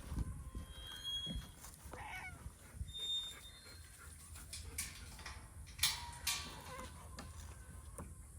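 Farm animals calling, with a few brief high chirps and several sharp clicks in the second half.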